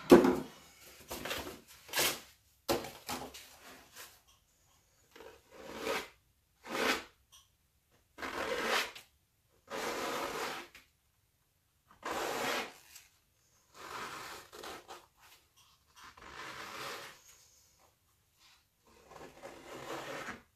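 Plastic scraper dragged across wet acrylic paint on a stretched canvas, in a series of separate strokes about one every two seconds, the first one the loudest.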